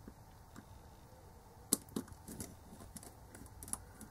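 Faint scattered clicks and ticks of a precision screwdriver working tiny screws out of a voice recorder's frame, with one sharper click a little before halfway.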